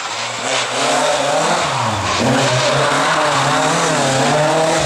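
Rally car engine revving hard under load, its pitch wavering and dropping briefly about two seconds in before climbing again.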